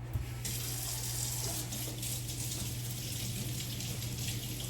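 Kitchen tap running into a sink, a steady hiss of water that starts about half a second in, with a low steady hum underneath.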